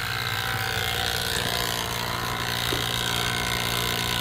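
Electric rotary-vane HVAC vacuum pump running steadily with a noisy, even hum while it pulls a deep vacuum on a new air-conditioner system through a single large hose.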